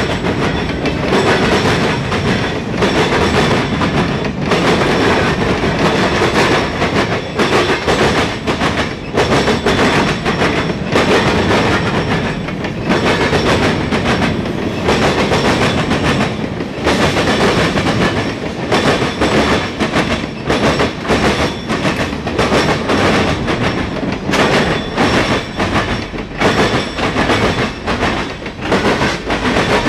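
Freight cars of a Norfolk Southern mixed freight train rolling past, loud. Steel wheels clack over and over on the rail joints above a steady rumble.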